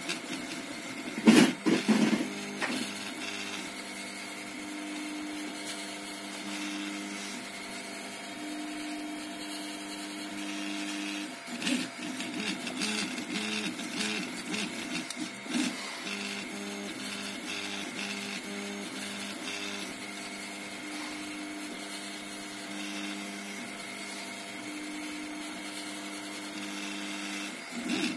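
Homemade CoreXY 3D printer printing: its stepper motors whine in steady tones that jump in pitch every second or so as the print head changes moves. A couple of loud knocks come about a second and a half in.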